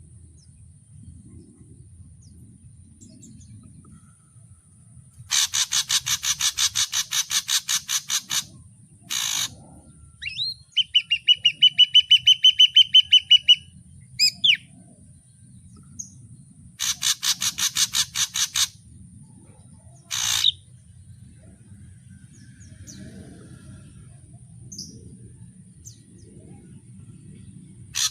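Ashy drongo singing in separate phrases: two harsh rattling series of rapid strokes about five seconds apart, a run of about fifteen quick clear whistled notes on one pitch between them, and a few short harsh calls. A steady low background noise runs underneath.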